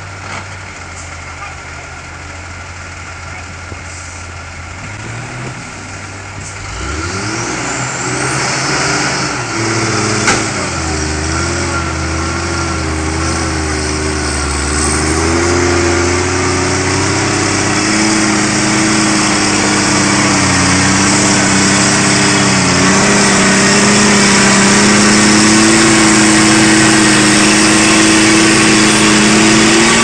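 Heavy V10 diesel engine of a log-laden logging truck pulling away under load. It starts as a low steady hum, then from about seven seconds in the engine note rises and wavers and keeps getting louder, with a single sharp knock about ten seconds in.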